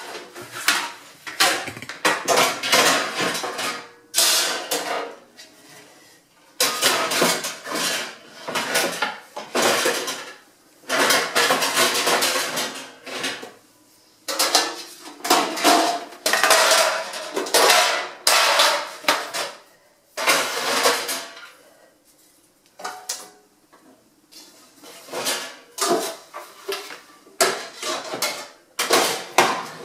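Metal baking trays, tins and pans clattering and scraping as they are put back into a kitchen cupboard, in irregular bursts of a few seconds with short pauses between them.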